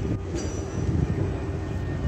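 Steady low rumble of a docked ferry's engine machinery, with a faint constant hum over it.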